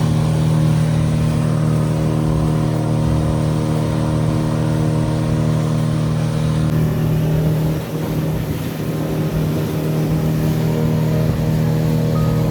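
Small hire boat's motor running at a steady cruising speed, a loud even drone that eases slightly about eight seconds in.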